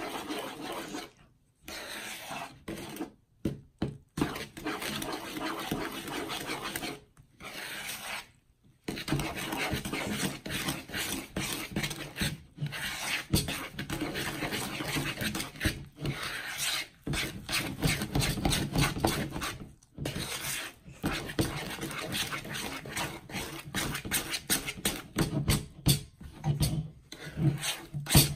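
A metal fork stirring and scraping rapidly in a plastic bowl, mixing dry cake mix with eggs and oil into batter, with a few short pauses in the stirring.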